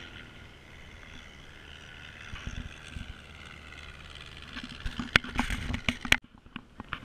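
Small propeller aircraft flying overhead, its engine a steady drone that falls slightly in pitch. Near the end come a run of loud knocks and bumps close to the microphone, then the sound cuts off suddenly.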